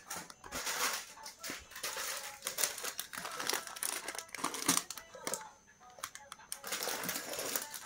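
Lego set packaging being handled and opened, crinkling and rustling in irregular bursts, with a short lull about six seconds in.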